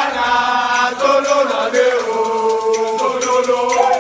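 A group of men singing a chant together in unison, holding long notes that change about once a second.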